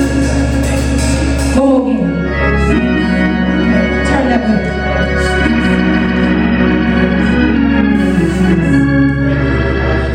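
Organ playing sustained chords that change every second or two.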